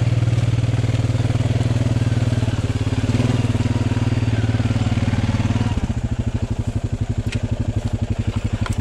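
Honda Rubicon 520 ATV's single-cylinder engine running steadily, then dropping to a slower idle about six seconds in.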